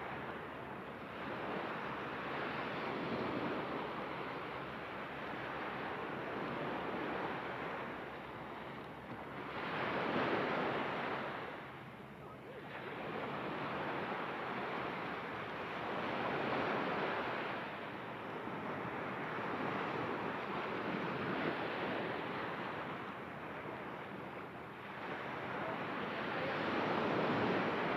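Ocean surf breaking and washing onto the shore in a steady hiss of water that swells and eases every few seconds, loudest about ten seconds in and near the end.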